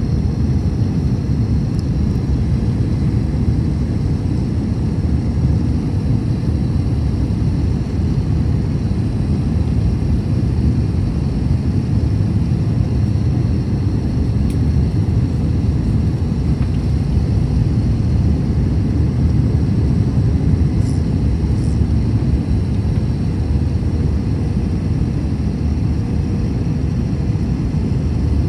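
Steady low rush of engine and airflow noise inside the cabin of an Airbus A321 airliner in flight.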